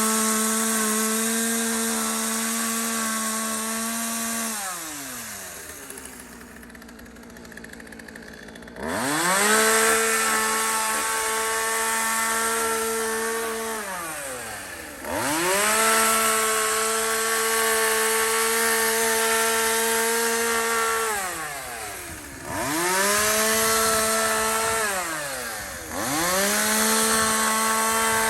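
Two-stroke chainsaw engine driving a brush-cutter attachment, run up to high, steady revs and let back down again and again. Its pitch falls to a low idle for a few seconds near the start, then it is held at full revs in stretches of three to six seconds, dipping briefly between.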